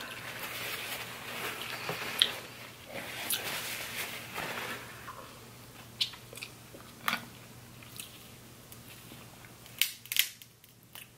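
Close-up mouth sounds of eating seafood in butter sauce: wet chewing and smacking. In the second half come a few sharp snaps, about 6 and 7 seconds in and twice near the end, from crab leg shells being cracked open.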